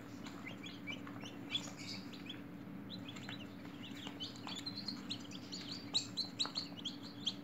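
A brood of newly hatched chicken chicks peeping: many short, high chirps overlapping, busiest near the end, over a faint steady low hum.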